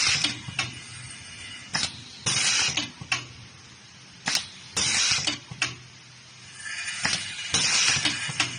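Blind riveting machine cycling on a test run: sharp clicks and short hissing bursts that come back every second or two, several times over.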